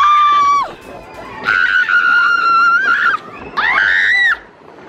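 Riders screaming on a roller coaster as it runs: three high screams, a short one at the start, a long held one from about a second and a half to three seconds, and a third that rises and falls near the end. A steady rushing noise of the moving ride runs underneath.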